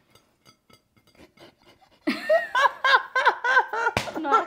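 Two people laughing: after a near-quiet start, loud, high-pitched ha-ha laughter breaks out about two seconds in, in rapid pulses of about three or four a second. A single sharp tap sounds near the end.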